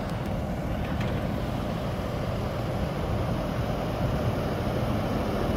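Tractor engine running steadily, a low even rumble.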